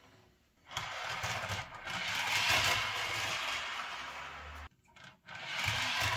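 HO scale covered hopper car rolling along newly laid track and through turnouts after a push by hand, as the track is tested for smooth running. A steady rolling rush of wheels on rails cuts off suddenly about four and a half seconds in, then starts again nearly a second later.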